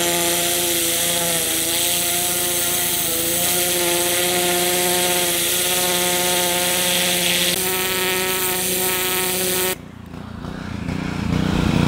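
Pressure washer running with a turbo nozzle, its spray hissing against a beaver hide: a steady motor hum under the hiss. Both cut off suddenly near the end as the trigger is released, leaving a low rumble.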